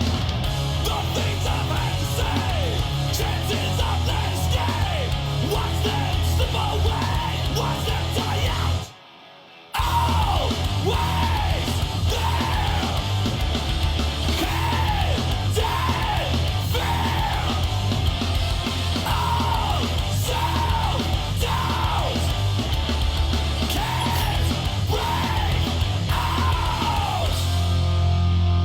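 Heavy metal music with yelled vocals. It cuts out for under a second about nine seconds in, then resumes.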